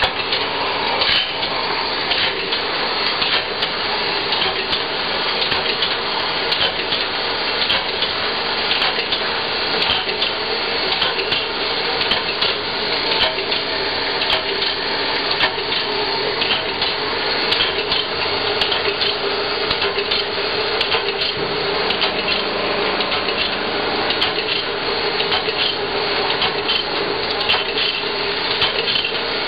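Automatic bandsaw blade sharpener running: a steady motor hum under the constant scraping hiss of the abrasive wheel grinding the teeth of a steel bandsaw blade, with frequent light metallic clicks.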